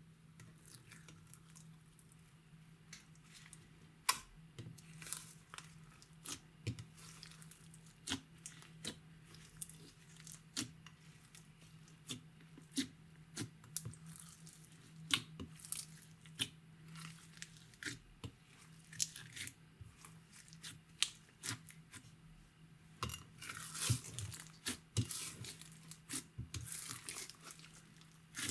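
Sticky slime being stretched, squeezed and folded by hand, giving irregular wet clicks, pops and crackles that grow denser and louder near the end.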